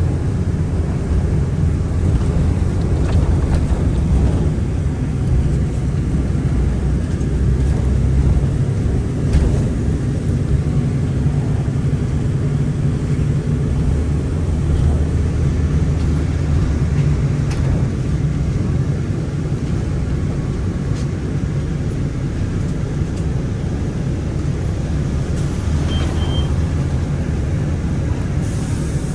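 Inside a moving city transit bus: steady low engine and road rumble with occasional light rattles, and a brief high double beep near the end.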